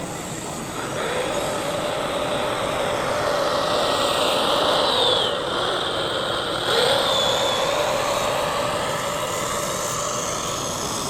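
Electric drive motor and gearbox of a radio-controlled model vehicle running with a steady whine, which dips and picks up again about seven seconds in.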